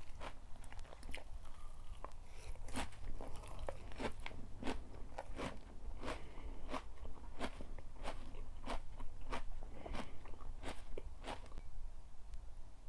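Close-miked chewing of crunchy food: a run of crisp crunches, about two a second, that stops near the end, over a low steady hum.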